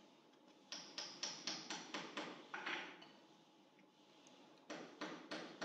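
Quick, light hammer taps on a screw-and-plastic-anchor level reference set into a concrete subfloor. A run of about eight taps is followed by a short scrape, then four more taps near the end.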